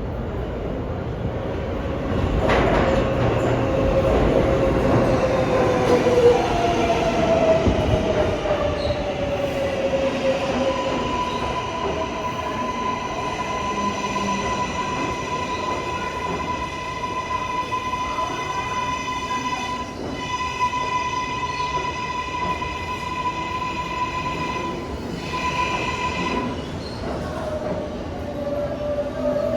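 New York City Subway L train (R143/R160 cars) moving on the rails, with a steady high-pitched wheel squeal for much of the time and a gliding motor whine in the first few seconds.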